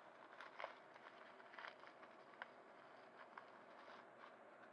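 Faint crinkling and rustling of a clear plastic bag being handled and opened, with a few short crackles in the first two seconds and scattered ones after.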